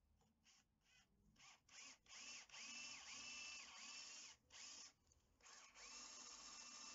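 Cordless drill boring holes in a metal plate. The motor is pulsed in short trigger bursts that grow longer, its whine rising and falling with each pull, then runs steadily with a couple of brief stops as the bit cuts.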